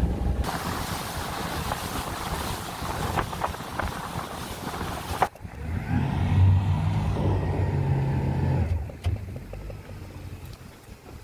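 Small fishing boat under way: a loud rush of wind and water over the engine for the first five seconds. Then, after a sudden change, the engine runs with a steady low hum, growing quieter about two seconds before the end.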